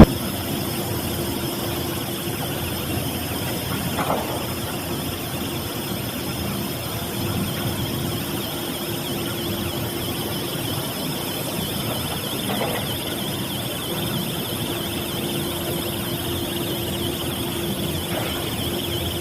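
SM08 thermal spray repair machine running: a steady hiss with a constant low hum and a faint wavering high whine.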